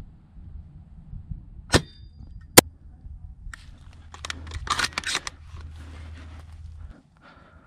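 Two sharp cracks under a second apart, the second louder: a spring-powered Laylax VSR-10 bolt-action airsoft sniper rifle firing. Then a few seconds of rustling and shuffling movement.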